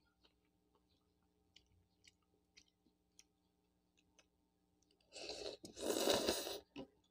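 Faint mouth clicks of chewing, then a loud slurp of noodles about five seconds in, lasting about a second and a half with a brief break partway through.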